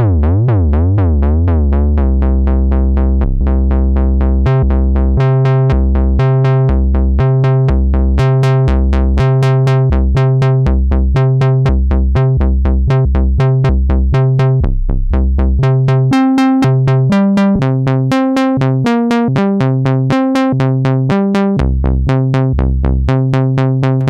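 1979 Kawai (Teisco) S-100F monophonic analog synthesizer, a single-oscillator synth, played solo. For about the first two seconds its pitch wobbles rapidly up and down. After that it plays a steady, fast run of short notes, and the pitch of the line changes every few notes.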